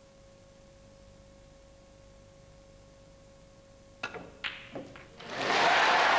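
Snooker cue strikes the cue ball about four seconds in, followed by two more sharp clicks of balls making contact as the pink is potted, over a faint steady hum. A second later the arena crowd breaks into loud applause.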